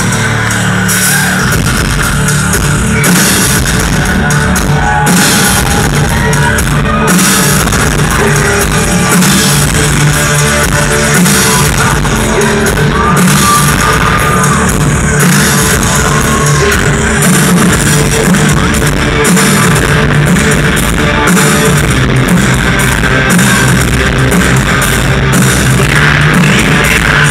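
A live industrial band playing loudly on stage, with drums, keyboards and a singer at the microphone, recorded from within the crowd.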